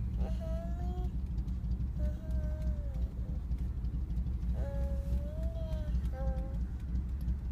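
Steady low road rumble inside a moving car's cabin, with a small child singing a few long, wavering notes.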